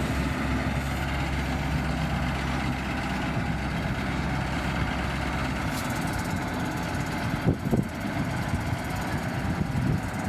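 Heavy earthmoving machine's diesel engine running steadily, with a brief knock about seven and a half seconds in.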